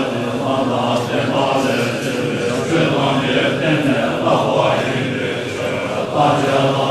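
Tibetan Buddhist monks chanting a prayer together, many low male voices in a steady group recitation with no pauses.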